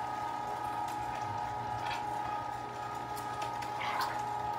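1 HP Carnivore electric meat grinder running steadily with a constant motor hum while grinding meat, including frozen pieces.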